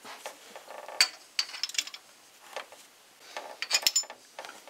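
Stamped-steel rocker arms of a small-block Chevy 350 cylinder head clinking against their studs and the pushrods as they are set in place by hand. The light metal clicks are scattered, with the sharpest about a second in and a quick cluster near the end.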